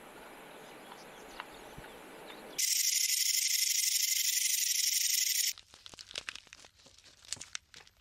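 A snake hissing: one steady hiss of about three seconds, by far the loudest sound here. Before it, a faint crackle with a few ticks; after it, scattered soft clicks.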